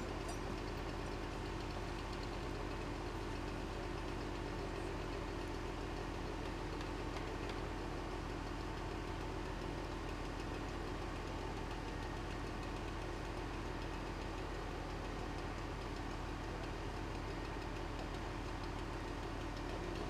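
An engine idling steadily, without revving.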